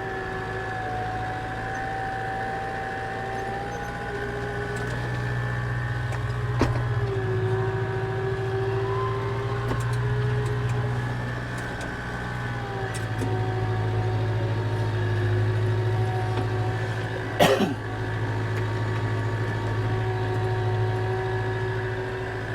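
Tractor engine running steadily under load while pulling a grass slitter, a deep hum with a whine above it that shifts slightly in pitch. A single sharp clunk comes about seventeen seconds in, with a lighter click earlier.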